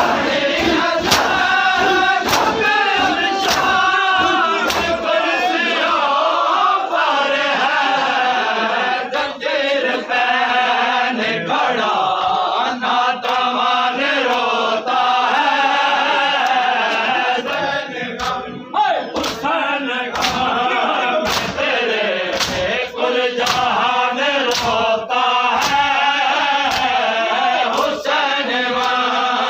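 A crowd of men chanting a mourning lament in unison. They keep time with sharp slaps of hands on bare chests (matam), a steady beat a little faster than one a second.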